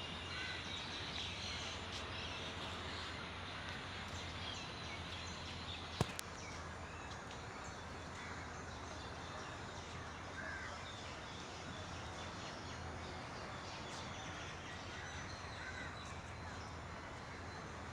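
Forest ambience: a steady hiss with a low hum and scattered bird calls, one of them perhaps a crow's caw. A single sharp click comes about six seconds in.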